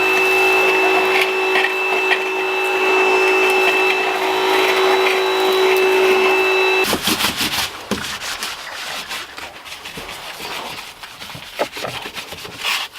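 Vacuum cleaner (hoover) running steadily with a whining motor tone and a loud rush of air, cleaning out the car's floor where the rear seats were removed. It cuts off suddenly about seven seconds in, and irregular rubbing and scraping follow.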